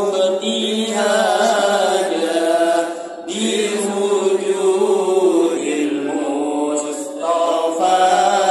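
A group of men chanting religious verses together in a slow, melodic unison chant, with a brief break between phrases about three seconds in.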